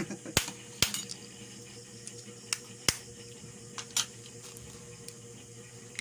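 Eating noises: scattered sharp clicks and cracks, three louder ones about half a second in, near one second and near three seconds, over a faint steady hum.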